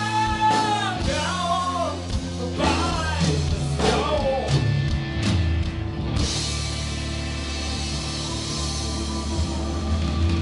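Live rock band playing: electric guitars, bass, drums and keyboards. A bending melody line rides over bass and drums for the first four seconds, then about six seconds in the band settles into sustained held chords.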